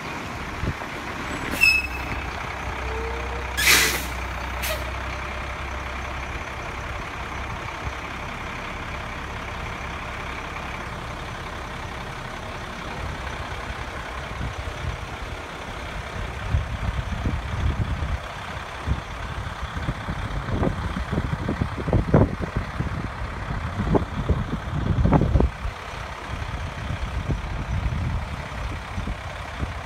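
A 1994 Ford L8000 floater spray truck's engine running as the truck drives around, with short air-brake hisses about two, four and five seconds in. From about the middle on, the engine sound turns louder and more uneven, with low thumps.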